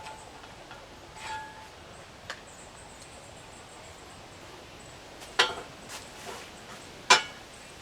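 Cookware and utensils being handled: a few light clinks, then two louder knocks in the second half, the last with a brief ring.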